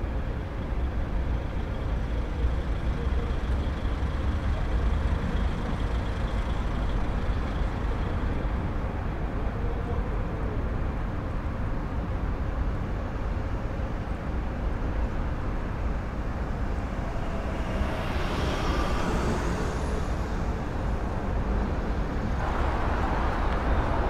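City street ambience: a steady low rumble of traffic. About a second and a half before the end it turns louder and brighter, the noise of cars passing on a busy road close by.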